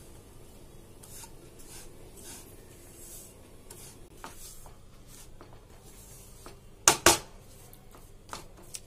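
Silicone spatula stirring dry roasting semolina around a nonstick pan: soft, repeated scraping strokes. Two sharp knocks about seven seconds in are the loudest sound.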